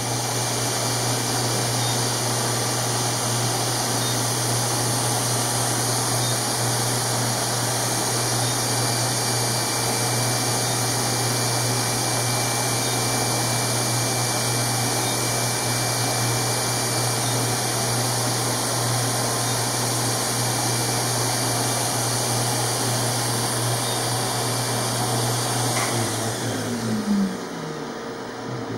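Surgical smoke evacuator running steadily with a low hum and a strong suction hiss while the CO2 laser ablates the skin growth. About 26 seconds in it is switched off, and its motor winds down with a short falling whine.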